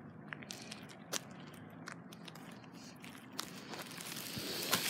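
Scattered light clicks and scuffs from walking on a concrete path with two small leashed dogs, a few seconds of footstep and handling noise that grows a little louder near the end.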